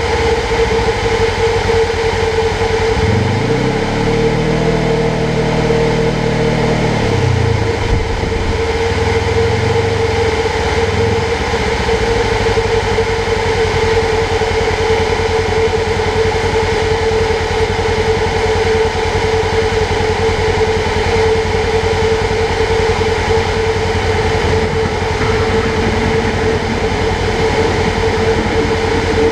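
Polaris General XP 1000 side-by-side running, with a steady high whine throughout. Its engine pitch rises and falls over the first several seconds, then holds steady.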